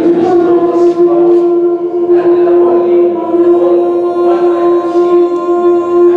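Background music built on one steady drone note held throughout, with fainter sustained tones above it in a chant-like style.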